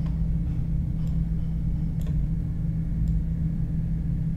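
Steady low hum, likely from the recording setup, with faint computer-mouse clicks about once a second.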